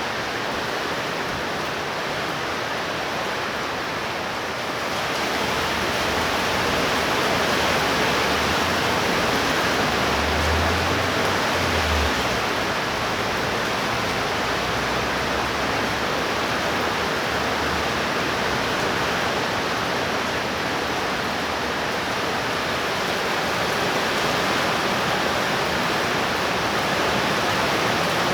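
Heavy thunderstorm rain pouring steadily. It grows heavier about five seconds in, and a brief low rumble comes near the middle.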